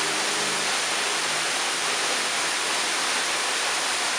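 Steady rushing of a nearby waterfall, an even unbroken roar of falling water.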